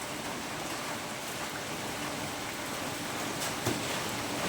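Steady hiss of rain, with a faint steady hum underneath and a couple of light clicks near the end.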